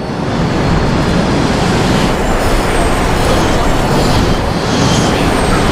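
Loud, steady roar of a jet airliner diving in a steep spiral out of control, swelling up in the first second and then holding.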